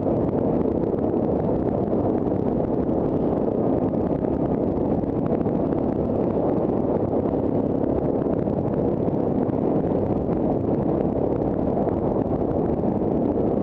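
Yamaha Grizzly ATV engine running steadily as the quad is ridden along a dirt trail.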